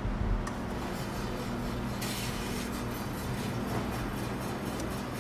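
Electric deli meat slicer running with a steady low hum as it cuts capocollo; a hiss joins about two seconds in.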